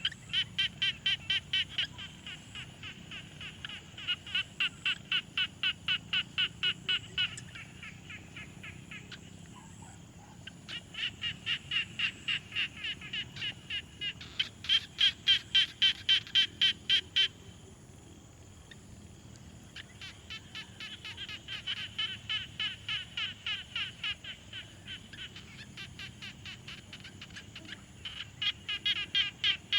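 Frogs calling at a pond: repeated bouts of rapid pulsed croaks, about five pulses a second, each bout lasting two to three seconds, with several frogs overlapping and taking turns.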